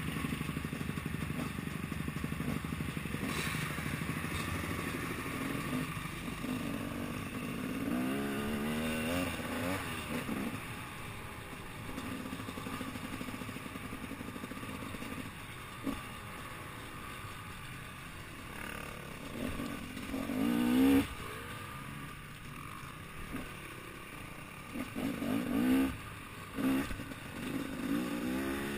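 Dirt bike engine heard from the rider's helmet, revving up and dropping back over and over as the bike accelerates and shifts along a rough trail, with the sharpest rev-ups about two-thirds of the way through and again near the end.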